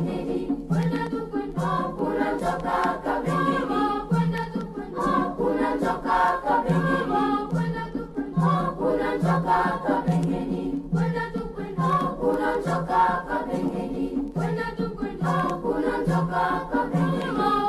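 Background music: a choir of voices singing over a steady beat.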